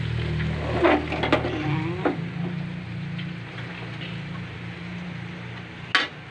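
A steel wok being shifted on a gas stove: a few metal clanks about a second in and another near the end, over a steady hiss from the lit gas burner and a low hum.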